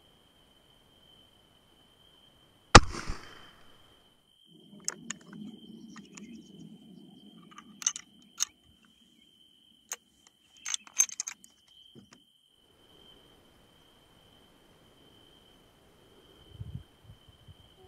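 A single rifle shot about three seconds in, followed by scattered clicks and knocks as the rifle is handled. A faint steady high tone sits underneath.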